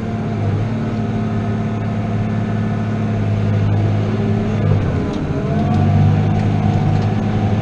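New Holland T7.210 tractor's six-cylinder diesel engine running steadily under ploughing load, heard inside the cab. About five seconds in, the engine note dips briefly and then settles again.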